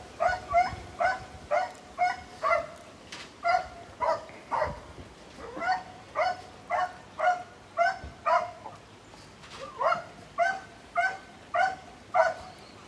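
A dog barking over and over in a steady rhythm of about two barks a second, pausing briefly twice.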